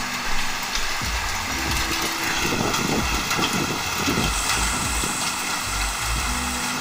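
Heavy rain pouring down in a summer storm, a steady hiss, with wind gusting on the microphone and a low rumble for a second or two in the middle.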